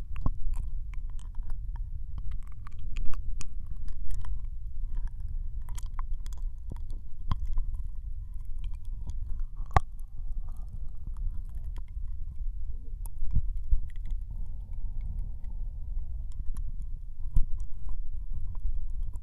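Ear licking on a binaural microphone in the right ear only: wet tongue and mouth clicks and smacks at an irregular pace, over a steady low rumble.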